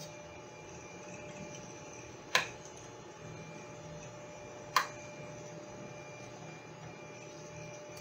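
Two sharp metallic clicks about two and a half seconds apart, over a steady low hum: a small screwdriver prying and slipping against an RJ45 jack on a circuit board while its pins are heated to desolder it.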